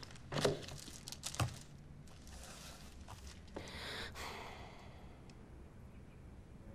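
Quiet room tone with two soft knocks about half a second and a second and a half in, then a long soft sigh about four seconds in.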